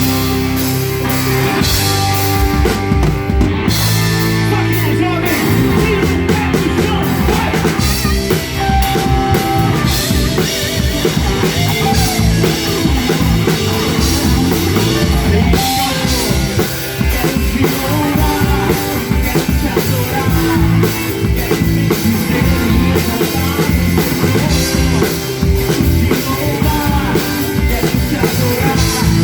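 Drum kit played along with a gospel worship song in a rock style, with band and singing in the mix.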